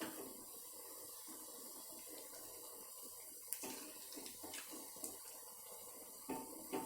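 Snacks shallow-frying in oil in a kadai: a steady low sizzle with scattered small pops and crackles.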